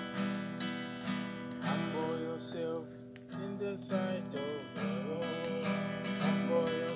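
Acoustic guitar strummed in a steady rhythm, with a voice singing a melody from about two seconds in. Crickets chirr steadily behind the song.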